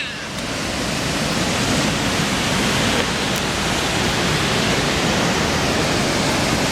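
Waterfall's rushing water, a steady even noise that swells slightly in the first second.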